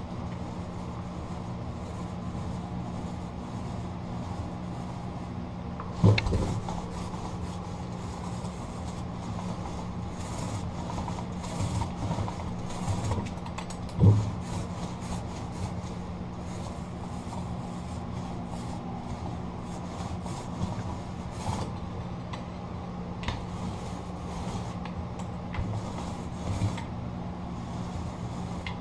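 Paint roller rolling back and forth over a painted door panel, a soft rubbing and scraping, over a steady low hum. Two sharp knocks stand out, the first about six seconds in and the second about fourteen seconds in.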